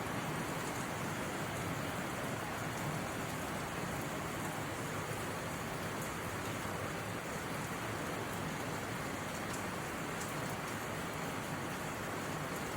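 Steady rain falling, an even hiss of rainfall with faint scattered drop ticks.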